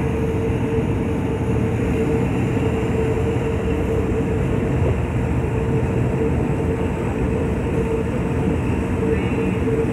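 Locomotive's Pielstick diesel engine running steadily as it pulls the train, a continuous rumble with a steady hum held on one pitch.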